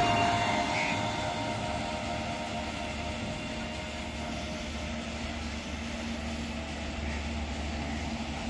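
Road traffic: an electric rickshaw passes close by with a whine that fades over the first two seconds as it drives away, then a steady low engine drone from lorries approaching along the highway.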